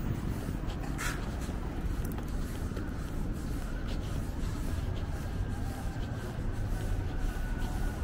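City street traffic ambience: a steady low rumble of cars running along the road, with a short sharp click about a second in and faint thin tones in the second half.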